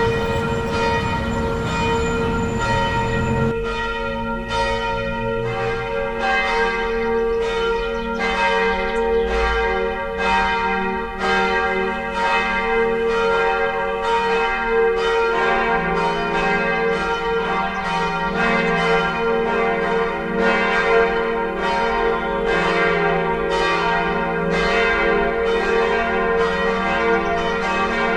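Church bells ringing, a call to Catholic worship: repeated strokes about one to two a second over a steady, lingering ring.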